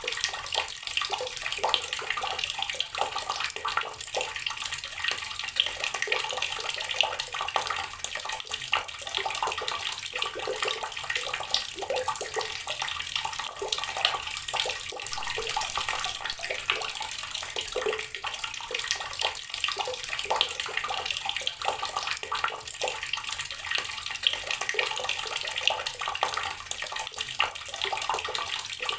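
Water from a running tap splashing steadily onto rocks, a continuous dense patter of small splashes.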